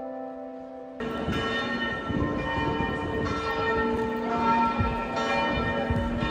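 Church bells ringing over the bustle of a crowded pedestrian square, with fresh strokes roughly every two seconds. The bells come in suddenly about a second in, after a short stretch of background music.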